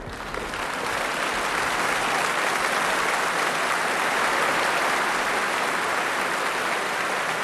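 Studio audience applauding, building over the first second and then holding steady.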